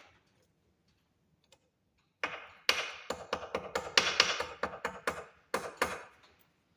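A small hammer tapping a heavy copper-wire jump ring closed: about a dozen sharp metallic taps over four seconds, starting about two seconds in.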